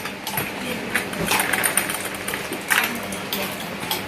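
People eating noodles from bowls with spoons: short slurps and spoons knocking against ceramic bowls come every second or so, with a faint steady hum beneath.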